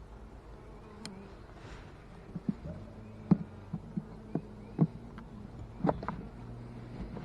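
Italian honey bees buzzing around an opened hive, a steady hum. Over it comes a run of short, sharp clicks and knocks, the loudest about three seconds in.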